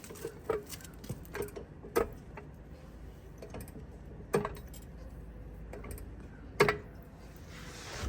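Floor jack being worked under a car: a handful of sharp metallic clicks and clunks at uneven intervals, over a low steady hum.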